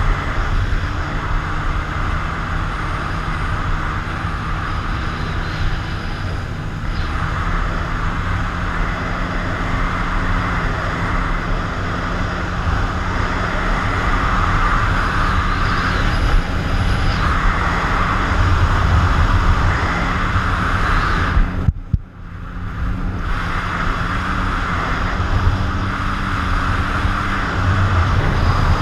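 Jet ski engine running under way, with wind buffeting the helmet-mounted microphone and spray and water rushing past. About three quarters through, the sound cuts out sharply for about a second, then comes back.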